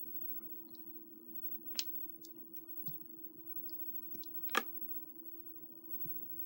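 Glass nail polish bottles being handled and set down, giving a few light clicks, the clearest about two seconds in and a louder one about halfway through.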